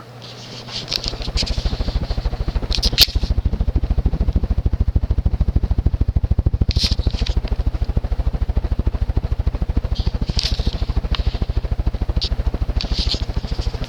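Vintage Hunter/R&M Original ceiling fan's two-speed motor running on high, with a steady hum under a rapid low fluttering pulse that swells up about half a second in, plus scattered light clicks and rattles. The blades carry vibration into the fan because it has no rubber isolation rings, which is typical of this fan.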